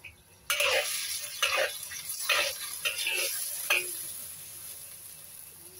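A metal spatula stirring and scraping sliced white radish around a steel wok in bubbling cooking water: several strokes in a row, with a hiss that fades toward the end.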